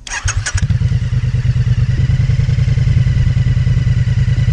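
Motorcycle engine: a few sharp clatters in the first half second, then the engine runs steadily with a fast, even pulsing beat.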